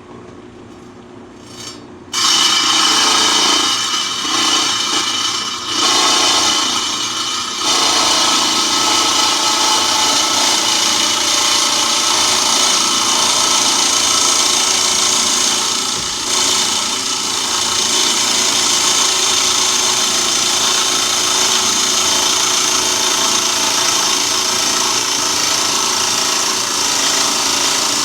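Lapidary trim saw's blade cutting into a block of howlite, a steady high grinding hiss. The cut starts abruptly about two seconds in, falters twice in the next few seconds, then runs on steadily.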